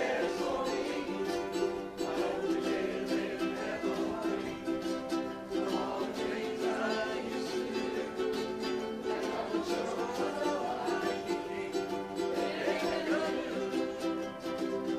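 A group of ukuleles strumming chords together in a steady rhythm.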